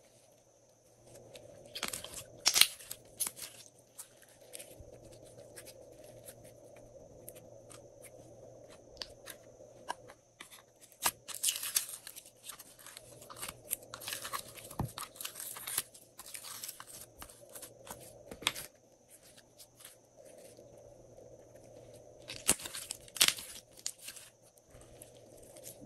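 Glossy slime being squeezed, stretched and pressed by hand, making sticky clicks and pops in clusters, thickest about two seconds in, through the middle, and again near the end.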